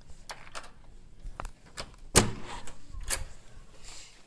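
A hotel room door being opened and shut: a run of clicks and knocks, with a sharp clunk about two seconds in and another a second later, mixed with camera-handling noise.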